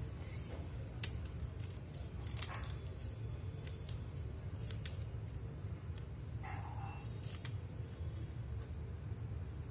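Scissors snipping through a strip of washi tape, a few separate snips and crinkles of the paper tape being handled, over a steady low hum.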